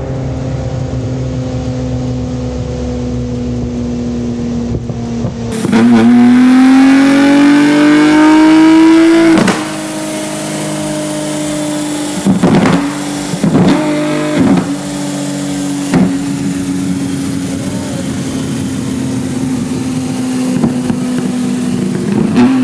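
Nissan Z's twin-turbo 3.0-litre V6 running steadily, then pulling hard for about three and a half seconds with its pitch climbing before a sharp lift-off. It is followed by four quick throttle blips and one more near the end.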